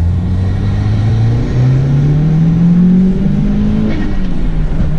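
Mitsubishi Lancer Evolution VIII's turbocharged four-cylinder engine accelerating, heard from inside the cabin, its note climbing steadily, then dropping briefly near the end as the throttle lifts for a gear change.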